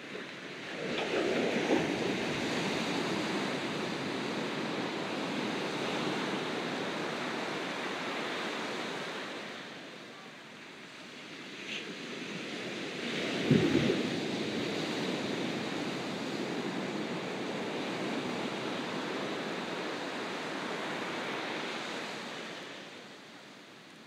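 Ocean waves breaking on a beach: one wave crashes about a second in and washes up the sand for several seconds, then after a short lull a second, sharper crash comes about halfway through and washes out, fading near the end.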